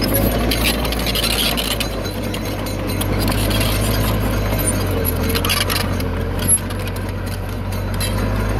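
Diesel engine of heavy earthmoving equipment running with a steady low drone that shifts in pitch a couple of times, with rocky soil scraping and clinking over it. One sharp knock comes about six and a half seconds in.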